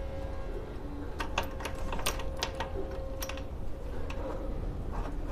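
Light metallic clicks and clinks of hand tools on a bicycle's square-taper bottom bracket as a bolt and nut are tightened into the axle to hold the bottom bracket tool, a quick irregular run of about eight clicks, over a faint steady hum.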